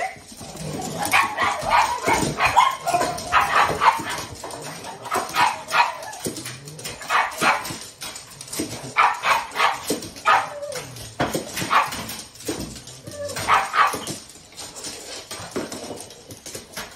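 Several pugs barking and yipping in repeated bouts, excited at feeding time while their food is being readied.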